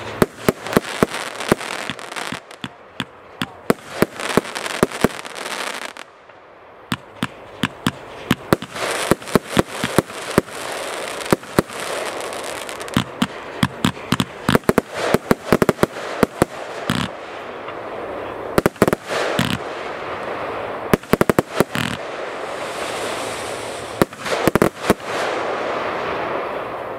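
Kimbolton Fireworks 'Sovereign' compound cake firing: rapid volleys of sharp bangs as its tubes launch shots and they burst, over a haze of crackling and hiss. There is a short lull about six seconds in, then the volleys pick up again.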